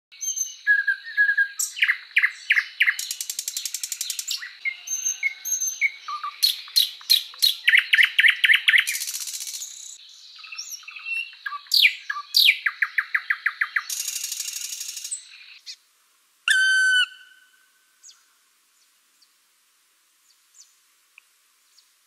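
Nightingale singing a rich, varied song of fast repeated notes, buzzy trills and sharp sweeping whistles. The song stops about two-thirds of the way through, and one short loud note and a few faint ticks follow.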